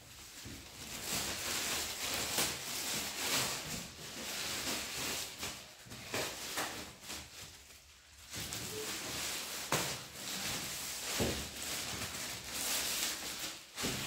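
Loose clear plastic wrapping on a large cardboard box crinkling and rustling as it is handled and pulled at, in irregular spells with a couple of brief lulls.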